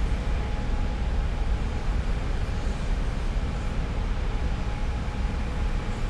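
Steady industrial din of an oil refinery heard close up: a deep, constant rumble with a hiss of noise above it and a faint steady hum.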